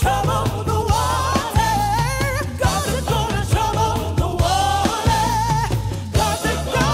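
Background music: a song with a singing voice, held notes wavering in vibrato, over a steady bass line and drum beat.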